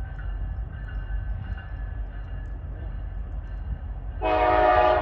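Low rumble of an approaching Norfolk Southern freight train, then, about four seconds in, the locomotive's air horn comes on suddenly and loud as a chord of several steady notes.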